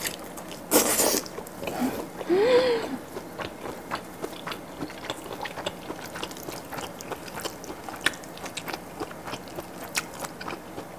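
Close-miked bite into a grilled kielbasa sausage, with a sharp snap about a second in, then steady wet chewing full of small clicks and smacks. A short hummed "mm" about two and a half seconds in.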